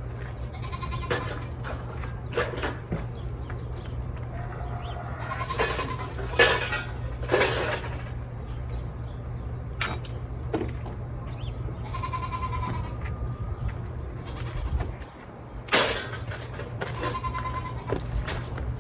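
Repeated short animal calls over a steady low hum.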